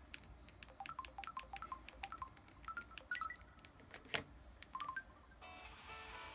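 Samsung Anycall SCH-W200 phone keys pressed in a quick run of clicks, each with a short electronic key beep at varying pitch, as the next ringtone is selected. Another of the phone's ringtones then begins playing near the end.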